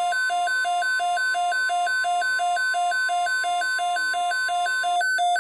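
Emergency alert receiver's alarm: a fast alternating two-note electronic beeping, about four low-high cycles a second. Under it runs the steady single-pitched NOAA Weather Radio warning alarm tone, which cuts off about five seconds in.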